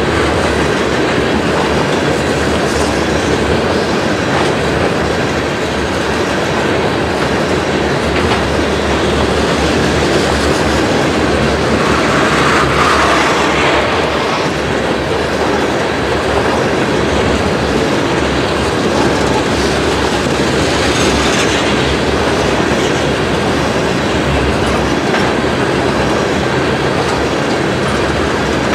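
A freight train of tank cars rolling past, a steady rumble of steel wheels on the rails.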